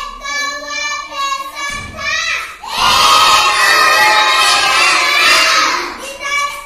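A child recites a Hindi children's poem in a high, sing-song voice. About three seconds in, a whole class of children joins in, shouting the lines loudly together for about three seconds, then the single voice goes on alone.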